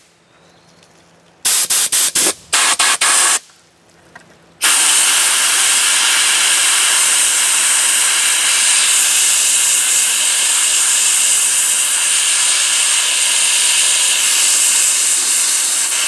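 Air-fed spot sandblaster firing coarse walnut-shell grit at rust on a steel part. There are a few short blasts of hiss about a second and a half in, then a steady blast from about four and a half seconds on.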